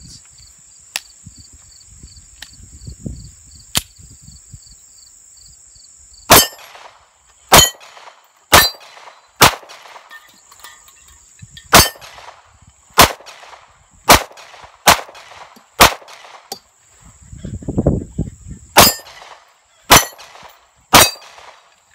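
Glock 26 9mm pistol firing about a dozen single shots at a slow, steady pace, roughly one a second, with a pause of a few seconds partway through; steel plate targets clang when hit.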